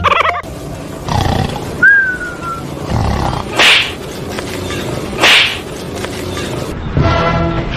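Two loud, short, harsh animal calls about a second and a half apart, after a brief falling squeal about two seconds in. Music starts near the end.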